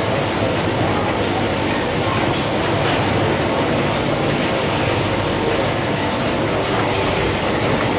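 Vojta SF1500 ice cream tub filling machine running: a steady mechanical hum and rattle, with a couple of sharp clicks as it cycles.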